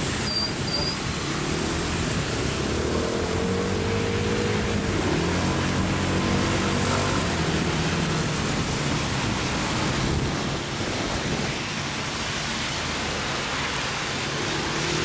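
A scooter engine running in traffic, its pitch rising and falling a few seconds in as it pulls away and eases off, under a steady hiss of rain and wind. Two short high beeps sound near the start.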